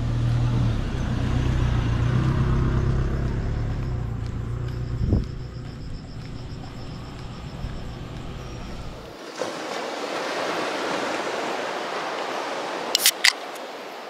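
A vehicle engine running with a steady low hum for about nine seconds, then an abrupt change to a steady hiss, with two sharp clicks near the end.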